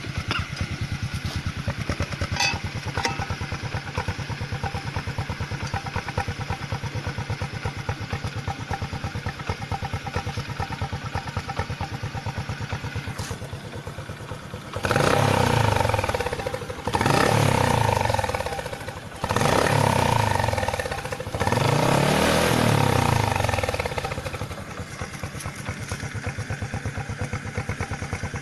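Honda Supra motorcycle's small single-cylinder four-stroke engine idling through a fitted bus-style SOS 'Jetbus' exhaust, a fast even putter described as 'blebep'. About halfway through, the throttle is blipped four times in a row, each rev rising and falling in pitch, before it settles back to idle.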